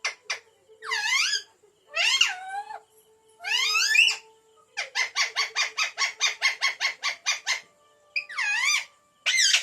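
Green parrot calling: single swooping squawks, with a fast run of short repeated shrieks, about six a second, through the middle.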